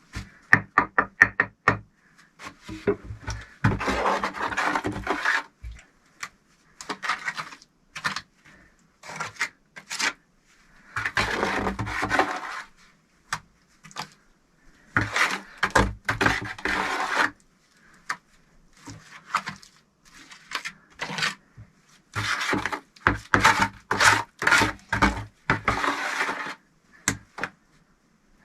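Bricklaying in clay mortar: a quick run of taps at the start, then scattered knocks of a trowel and bricks, with stretches of mortar being scraped and spread.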